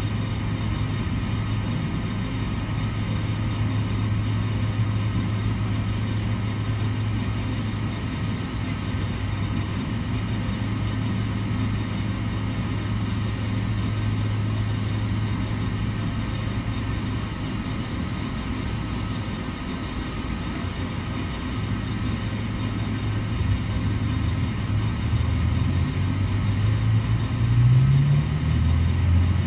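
A steady low machine hum, like a motor or engine running, that wavers and shifts upward in pitch over the last few seconds.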